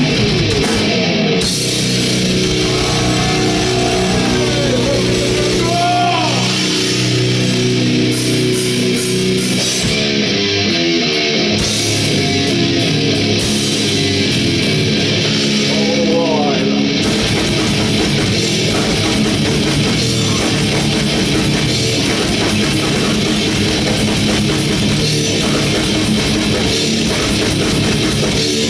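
Heavy metal band playing loud: distorted electric guitars holding chords, with bending lead notes in the first half, over a drum kit that turns to fast, dense drumming about halfway through.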